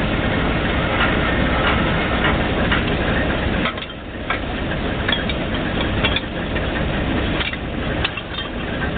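Failling 1250 drilling rig's engine running steadily, with scattered short knocks and a brief drop in level about four seconds in.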